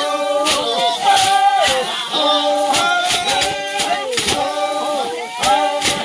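Unaccompanied singing in long held notes that slide from one pitch to the next, with a few sharp knocks in between.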